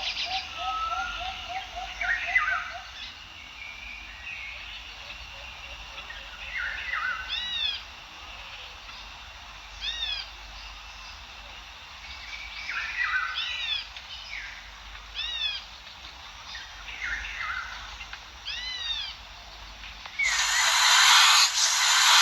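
Birds calling: a short arched call repeated about every two and a half seconds, among other scattered chirps. A loud hiss starts near the end.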